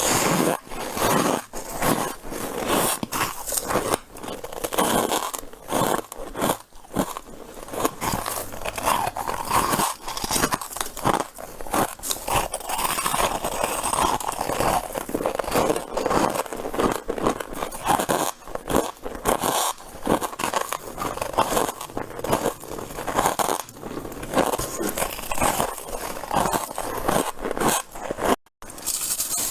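Freezer frost being bitten and crunched close to the microphone, bite after bite: dense, squeaky crunching of powdery frost ice.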